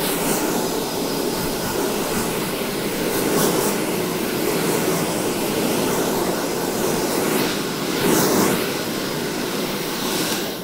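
Hand-held hair dryer blowing steadily, with slight swells as it moves, switched off at the end.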